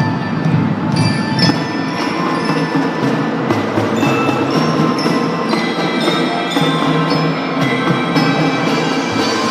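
Drum band playing: mallet percussion such as bells and xylophones rings out melody notes over a steady bed of drums and band sound, with many notes struck in quick succession.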